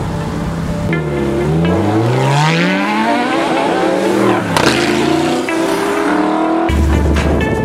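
A sports car's engine revving hard as it accelerates on a race track, the pitch climbing again and again through the gears. About halfway through it passes close by with a drop in pitch, then runs on steadily.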